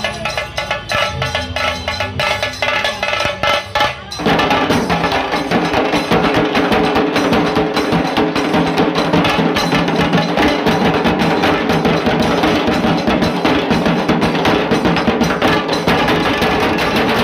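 Dhol tasa band drumming: fast, lighter strokes at first, then about four seconds in the full band of dhol and tasa drums comes in suddenly, loud and dense, and keeps up a rapid steady beat.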